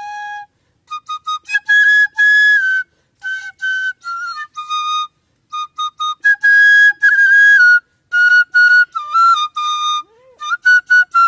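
Bamboo transverse flute (bansuri) playing a song melody: held notes and quick stepping notes in short phrases, separated by brief pauses, with a breathy edge to the tone.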